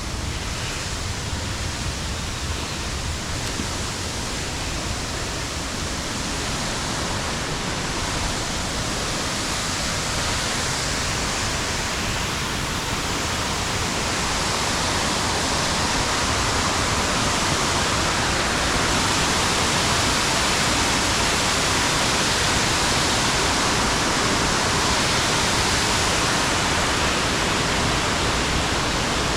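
Steady rushing of a mountain waterfall, a continuous even roar of falling water that grows somewhat louder through the first half.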